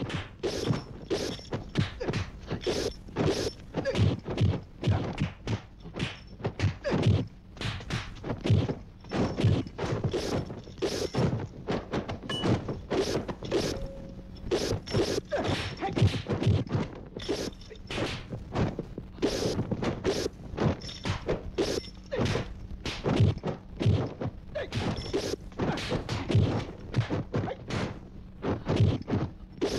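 Kung fu fight sound effects: a rapid, irregular run of punch and kick thwacks and thuds, several a second.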